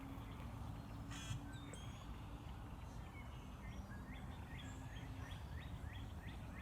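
Birds calling: a quick run of short, rising chirps in the second half, over a faint low outdoor rumble.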